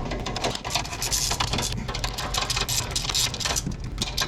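Hand ratchet wrench clicking rapidly in irregular runs as suspension bolts are turned, over a steady low hum.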